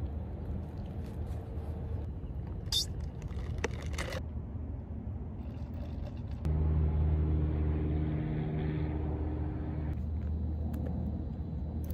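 Steady low rumble of distant vehicle traffic, which steps up in level about six and a half seconds in and carries a steady low engine-like hum from there on. A single sharp click comes near three seconds in.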